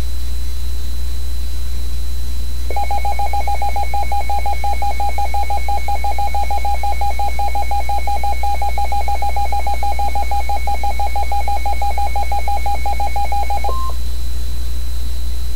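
Emergency weather alert tone: a rapid electronic beeping lasting about eleven seconds, ending in a brief steady higher tone. It signals an incoming severe weather warning broadcast. A steady electrical hum runs underneath.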